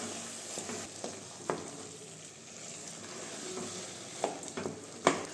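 Wooden spatula stirring and scraping grated-carrot halwa with khoya in a non-stick kadhai over the flame, the mixture frying with a steady sizzle. A few sharp knocks of the spatula against the pan, the loudest about five seconds in.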